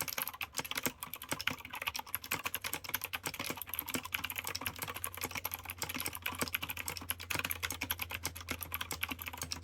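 Continuous fast typing on a Matrix 65% mechanical keyboard with PBT doubleshot keycaps: a dense, unbroken run of keystroke clicks, over a faint steady low hum.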